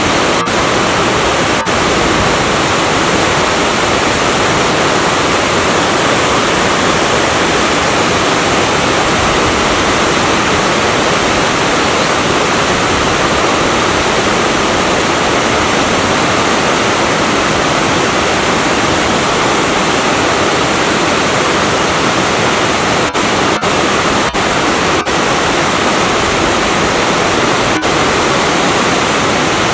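Yongchu Falls, a natural waterfall pouring about 5 m down a rock face into its pool: a loud, steady rush of falling water.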